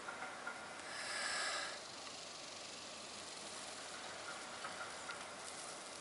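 A person blowing one long breath into a dry-grass tinder bundle that holds a smouldering ember, coaxing it toward flame; the blow comes about a second in and lasts just under a second.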